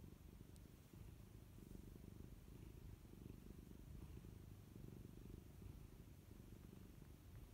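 Domestic tabby cat purring low and steadily while being stroked on the head, a faint, continuous rumble.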